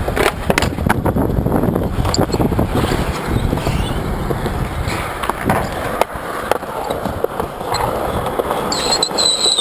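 Skateboard wheels rolling on concrete, a steady rumble broken by sharp clacks of the board popping and landing. A high, steady whine comes in near the end.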